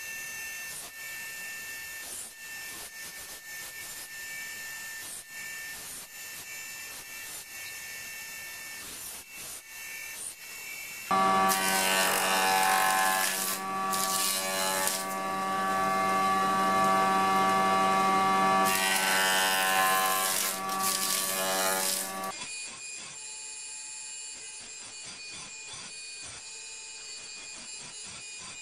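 A band saw runs through pear wood with a steady whine for about ten seconds. Then a Kity 637 jointer-planer's cutterhead takes over, much louder, rising into a harsh cutting noise twice as a piece of log is fed across it. Near the end it drops back to a quieter machine hum.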